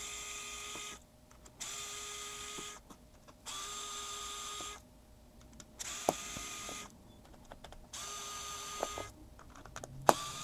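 Pen-style electric screwdriver running in six short bursts of about a second each, with quiet gaps between, unscrewing the small screws that hold a metal shield over a smartphone's battery connector. A couple of sharp clicks come with two of the bursts.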